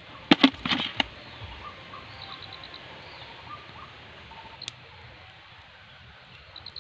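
A cluster of loud, sharp knocks and rustles in the first second. Then a quiet background of small bird chirps, with a quick run of about six short, high, even notes heard twice.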